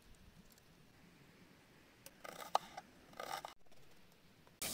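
Crisp cracking and clicking from a pomegranate being broken open by hand and its arils picked into a steel bowl, in two short clusters about halfway through, one click sharper than the rest.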